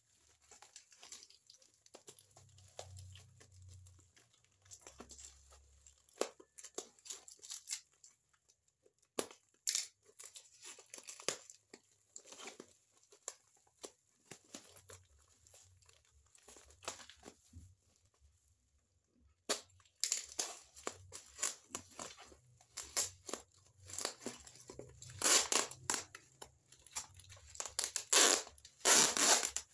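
Brown packing tape being peeled and ripped off a parcel wrapped in black plastic, with the plastic crinkling: irregular crackles and rips, busier and louder in the last third, with the longest rips near the end.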